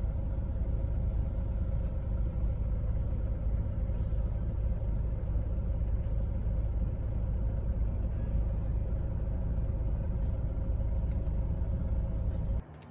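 Steady low road rumble inside a moving car's cabin, cutting off abruptly near the end.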